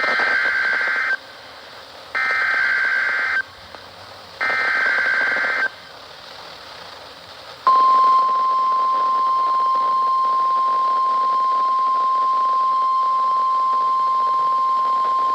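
NOAA Weather Radio alert received on a radio: three short bursts of SAME digital header data, each a buzzy two-tone burst about a second long with faint static between them. About eight seconds in, the steady single-pitch 1050 Hz warning alarm tone starts and holds.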